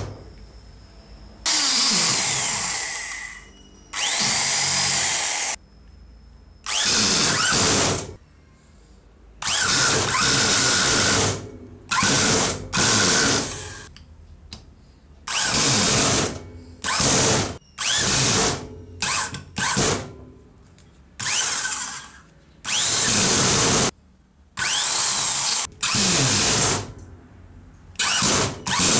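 Restored Hitachi electric screwdriver drill driving screws into a wooden block, its motor whirring in short runs of one to two seconds that start and stop again and again.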